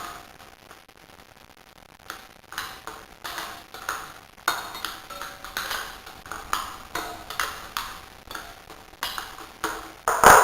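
Metal-on-metal clinks and taps, as of tools and wheel parts being handled during a rear tyre change. They come as an irregular run of sharp strikes, some with a brief ring, and the loudest knock falls near the end.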